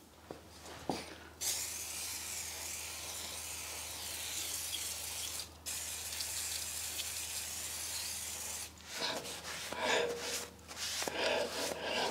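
Aerosol cleaner sprayed onto a rusty brake disc and hub in a long steady hiss, broken once about halfway. Near the end a cloth rubs over the disc in several quick wiping strokes.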